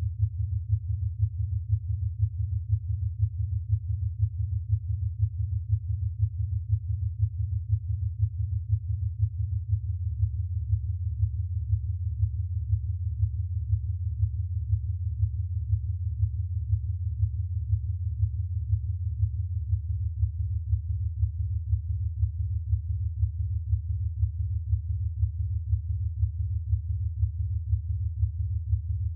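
Ten pure sine tones tuned to low prime-number frequencies sound together as a low hum. The close frequencies beat against one another, so the hum swells in a regular pulse. The set of tones steps down about every ten seconds as the sequence of prime chords descends.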